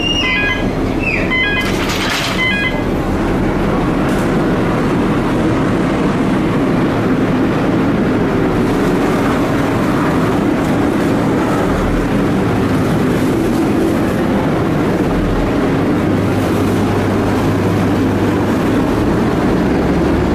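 Harbour ferry's diesel engine running on board, a loud steady rumble as the ferry pulls away from the pier, with a low hum joining about three quarters of the way through. A few short beeps and a brief clatter come in the first couple of seconds.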